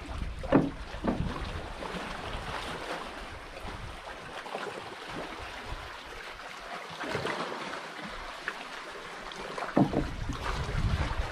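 Water lapping and splashing around a small outrigger boat, with wind rumble on the microphone. A few sharper splashes or knocks stand out near the start and again about ten seconds in.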